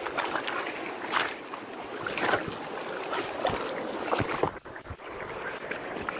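Steady rush of fast river water, with several sharp splashes and knocks from the phone being handled roughly close to the water; the sound is briefly muffled about four and a half seconds in.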